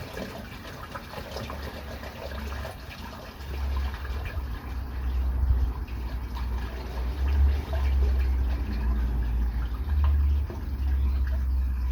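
Water running and gushing through a drain, with a low rumble that grows louder about three and a half seconds in.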